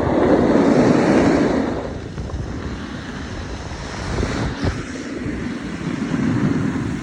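Snowboard sliding over snow, a rushing scrape that is loudest in the first two seconds and swells again twice later, with wind buffeting the microphone.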